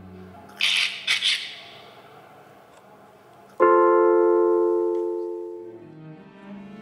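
Electric piano played live: a few short hissing swishes about half a second in, then a single chord struck about three and a half seconds in that rings out and fades over two seconds.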